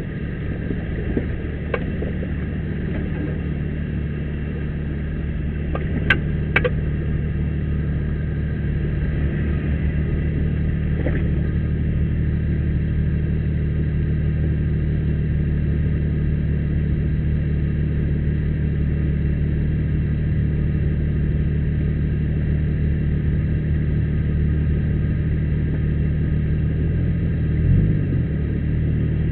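Jeep engine running steadily at low revs on the trail, with a brief rise in revs near the end. Two sharp clicks about six seconds in.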